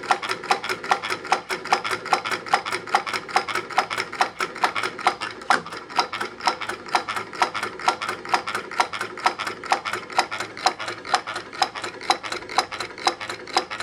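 Homemade Stirling engine running, ticking with an even, rapid click about four or five times a second as its flywheel and pistons turn.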